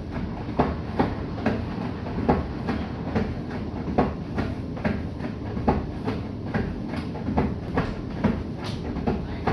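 Bosch i-Dos WGG154A10 front-loading washing machine running, its drum turning with a steady low hum and a regular thump a little more than once a second, with lighter clicks in between.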